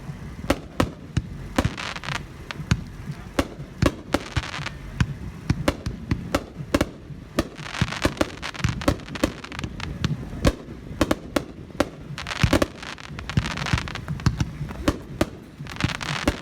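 Brothers Legends finale set of aerial fireworks cakes firing: a rapid, irregular string of sharp bangs, several a second, with some louder booms among them.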